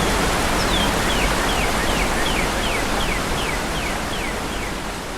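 Steady rush of creek rapids with a waterfall's lower roar behind, while a northern cardinal sings a run of about a dozen downslurred whistled notes, about three a second. The whole recording slowly fades near the end.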